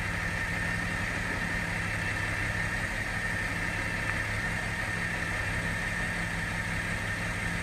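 Diesel shunting locomotive's engine running steadily at low revs, a low hum, as it moves slowly past.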